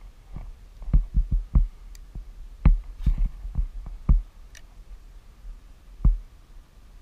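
Irregular dull knocks and thumps on a kayak hull, carried through the boat-mounted camera: a quick cluster in the first few seconds, then a few single knocks, the last one near the end.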